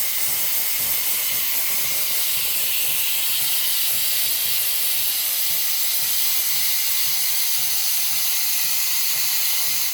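Steam wand of a Gemilai 3005G espresso machine purging: a steady, loud hiss of steam venting from the one-hole tip, which clears condensed water before milk steaming. The hiss cuts off abruptly at the very end.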